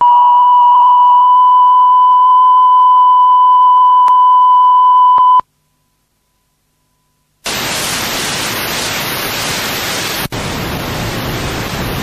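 Steady 1 kHz test tone played back from a recording on a repaired metal Type II cassette. It holds its pitch with no wow, with a fainter overtone above it. It stops about five seconds in, and after a short silence a steady hiss of test noise starts.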